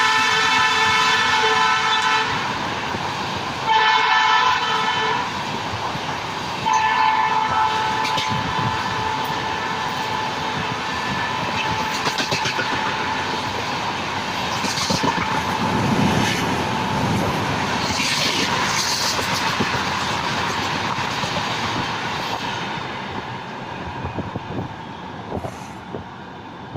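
Express train of LHB coaches running through a station without stopping. The locomotive's horn sounds and breaks off about two seconds in, then blows twice more, and the steady running noise and wheel clatter of the coaches follow, fading near the end.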